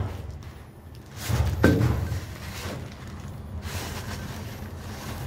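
A single footstep thud on a steel stair, with a sharp click about a second and a half in, then a low steady background rumble.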